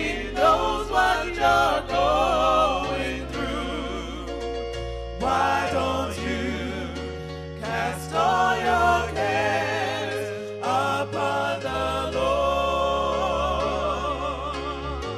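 Gospel music with a singing voice, long held notes wavering with vibrato over a bass line that steps from note to note.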